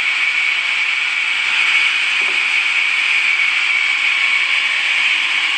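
Steady hissing noise of a sawmill blade cutting through wood, running on without a pause.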